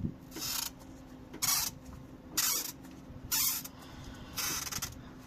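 Rubber fuel hose scraping on the fuel filter's spigot as it is twisted with pliers, in five short scrapes about once a second: the hose is stuck fast on the filter.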